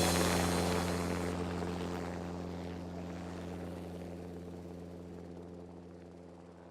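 The backing track's final low chord ringing out on its own after the song stops, fading away steadily over several seconds.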